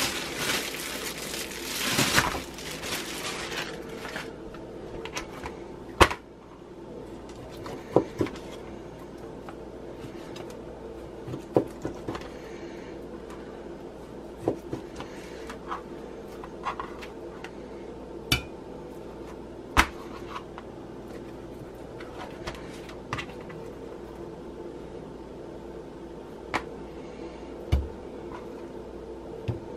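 Chef's knife slicing raw chicken breast on a plastic cutting board, the blade knocking sharply on the board every couple of seconds. It opens with a few seconds of plastic wrapping rustling, over a steady low hum.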